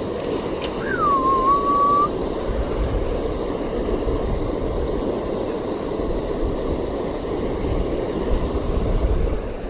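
Steady rushing of flowing creek water, with wind buffeting the microphone in low rumbles from a few seconds in. About a second in, one short whistle falls in pitch and then holds level.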